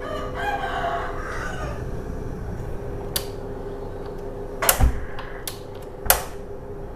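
A rooster crows once at the start, the call lasting about a second and a half. Then come a few sharp clinks and knocks, the loudest near the end, over a steady low hum.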